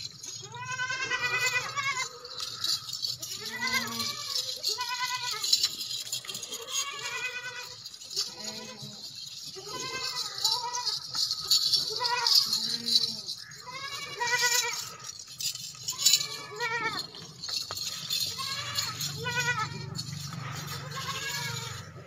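Makhi Cheeni goats bleating over and over, about ten quavering calls, one every second or two.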